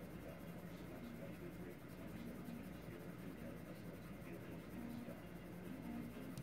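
Faint scratching of a Prismacolor Premier colored pencil shading on coloring-book paper with light, even strokes.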